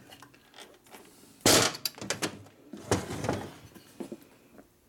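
Hand work on motorcycle engine transmission parts: one loud, short knock about a second and a half in, then a few lighter knocks and clunks.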